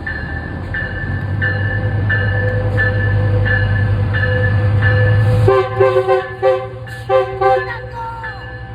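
Metrolink locomotive 924 with its engine rumbling and a bell ringing about every two-thirds of a second, then the horn sounds a series of short chorded blasts from about five and a half seconds in.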